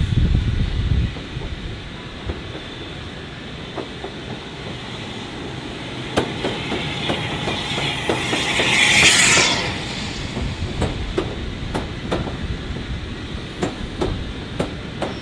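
A steam-hauled train moving slowly past, its wheels clicking over rail joints in close pairs. A loud hiss of steam swells and fades about nine seconds in.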